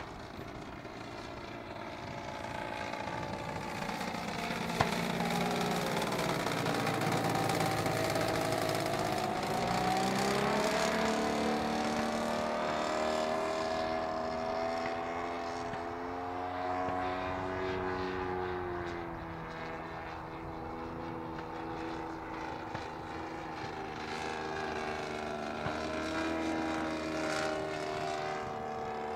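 Engine and propeller of a 50%-scale clipped-wing Piper Cub radio-control plane in flight, a steady drone whose pitch sags and rises several times as the throttle and flight path change. It is loudest about a third of the way in, where the pitch dips and then climbs sharply.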